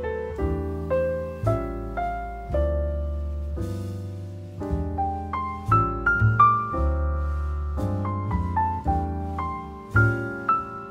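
Background piano music: struck notes and chords ringing out over a low bass line.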